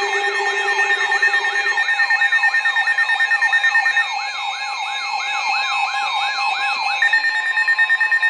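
Electronic siren-style alert tone: quick falling pitch sweeps, about three to four a second, over steady held tones, opening a severe thunderstorm warning. The sweeps stop about seven seconds in and the steady tones cut off shortly after.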